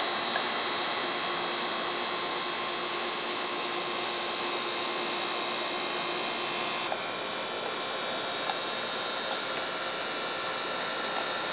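A steady hum with several high whining tones held under a faint hiss; some of the tones drop out about seven seconds in.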